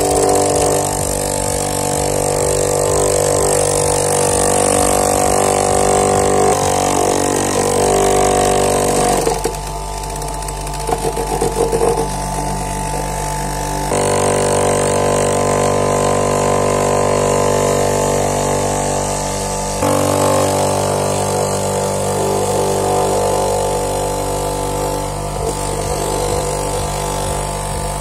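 Electric grinder running steadily with a droning motor hum while grinding rusty steel pliers. Its tone changes abruptly a few times.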